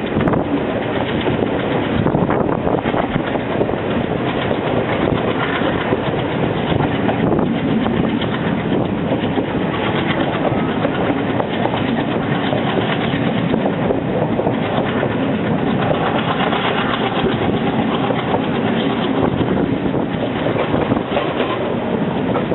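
Diesel multiple unit (DMU) train running along the line, a steady dense rumble of wheels on rail and running gear.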